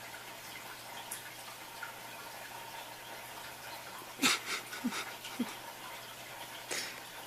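Quiet room tone with steady faint hiss. About four seconds in come a few soft clicks and brief faint sounds, with one more click near the end.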